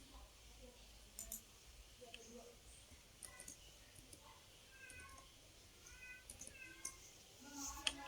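Near silence, with faint short high-pitched animal calls in the background, several of them from about three seconds in.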